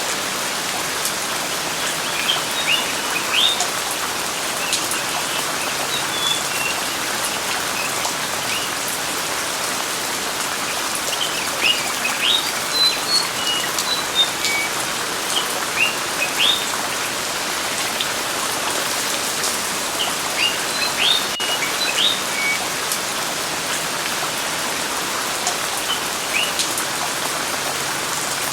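Steady rain with birds chirping: a constant even hiss, and short high chirps that come in scattered clusters, thickest around the middle.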